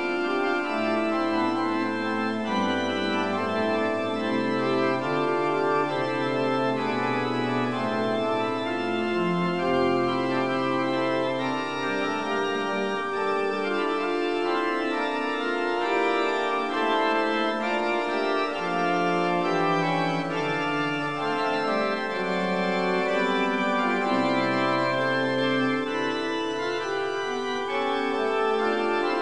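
Organ playing slow, held chords, the bass notes changing every few seconds.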